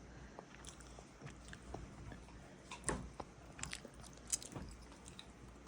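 A young child chewing food: faint, scattered small clicks and wet mouth noises.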